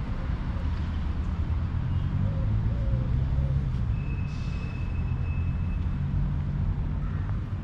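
A motor vehicle's engine running, a low rumble that swells in the middle and eases off again, with a thin high whine for a couple of seconds past the middle.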